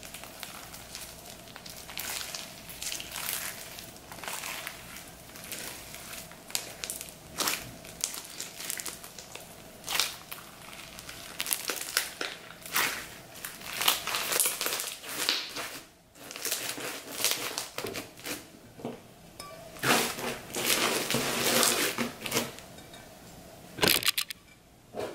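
Clear slime packed with foam beads being squeezed and worked by hand, giving irregular crunching, crackling and popping, with denser crackles around the middle and again near the end.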